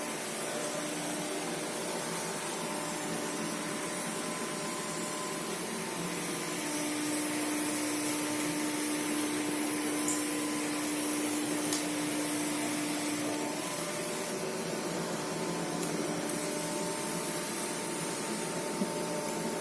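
Vacuum cleaner running steadily: an even hiss with a constant motor hum, a little louder through the middle stretch.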